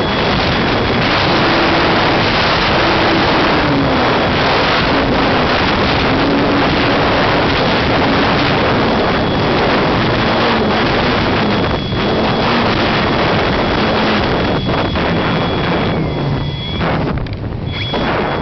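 Loud wind rush over the microphone of an RC glider's on-board camera in fast, low flight. Under it is a faint hum that wavers up and down in pitch, and a thin steady high whine that breaks up near the end.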